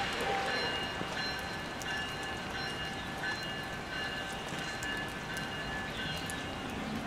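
Rain falling, with the approach of a distant Amtrak train led by an ACS-64 electric locomotive, heard as a steady hiss with thin, steady high-pitched tones and scattered small ticks.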